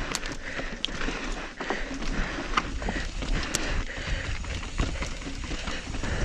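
Irregular knocks and rattles from riding over chunky, rocky trail, over a steady rushing noise, with heavy breathing.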